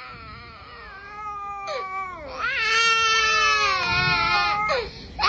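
A drawn-out wailing cry: soft and wavering at first, swelling about two and a half seconds in to a loud, held wail that bends up and down in pitch, then breaking off near the end.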